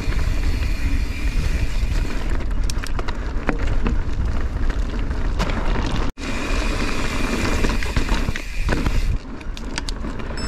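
Mountain bike being ridden over rough, rocky ground: steady wind rush on the microphone and tyre noise, with scattered clicks and rattles from the bike over bumps. The sound cuts out for an instant about six seconds in.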